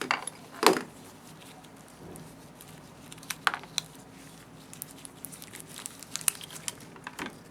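Small metal clicks and taps of hands taking apart a cable harness clamp and its screws on a slit lamp chin rest base. Sharper clicks come under a second in, midway and near the end.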